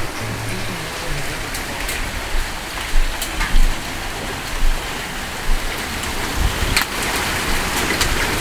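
Heavy monsoon rain pouring down as a steady hiss, with scattered sharp ticks of drops and a few brief dull thumps around the middle.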